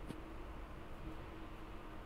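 Electrolyte analyzer running its automatic pipeline wash: a faint steady hum, with one light click just after the start.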